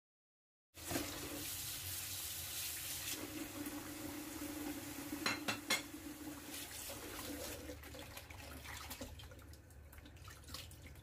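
Kitchen tap running into a plastic basin while raw pork and chicken pieces are rinsed and rubbed by hand. The water starts about a second in, a few sharp knocks come around the middle, and the flow grows quieter near the end.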